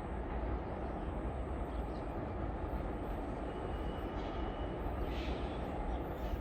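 Goods train rolling past, a steady low rumble of wheels and wagons.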